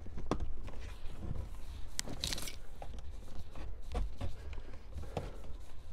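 Plastic dash vent panel, held on with clips, being pried and pulled loose with fingers and a plastic panel tool: scattered small clicks and scrapes, with a sharper click about two seconds in followed by a short scrape.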